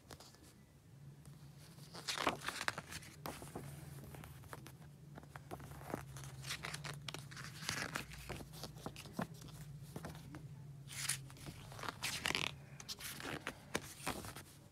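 Paper pages of a CD booklet being turned and handled: a continuous run of rustling and rubbing, with several louder crinkles as the pages flip.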